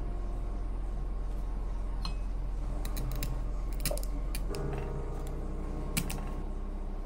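A cleaver blade cutting into the hard rind of a whole kabocha squash, giving a run of sharp clicks and cracks from about two to four and a half seconds in and one more near six seconds, over quiet background music.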